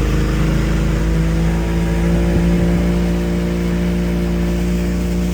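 An engine running steadily, its pitch rising slightly about a second in and then holding.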